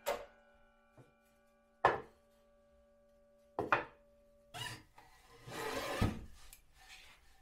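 Sliding miter saw blade coasting down after a cut, a faint steady whine that stops about halfway. Over it come three sharp knocks of wood pieces on the saw table, then boards sliding and rubbing against it, with a thump about six seconds in.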